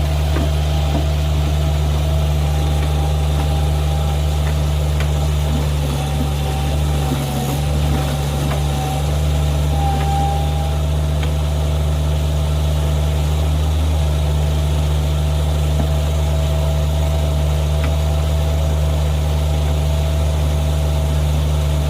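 An engine running steadily at an even speed: a deep, constant drone with a faint higher whine over it.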